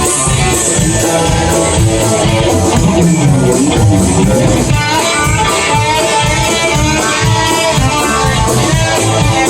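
A country band plays an instrumental break: a lead guitar solo with bent notes over bass and a steady drum beat, with no singing.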